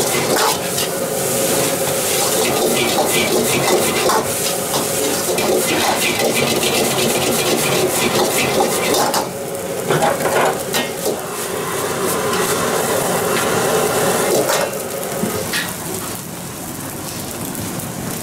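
A metal ladle repeatedly scrapes and clacks against a wok as egg fried rice is stir-fried over high heat, with the rice sizzling steadily. The sound eases off a little about halfway through.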